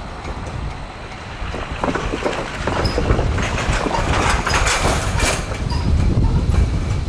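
CSX freight train of autorack cars rolling along the main line, its wheels clicking and rattling over the rails, loudest about four to five seconds in.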